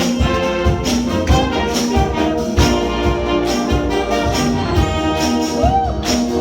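Wind band playing an upbeat pop arrangement, brass leading over a steady drum beat.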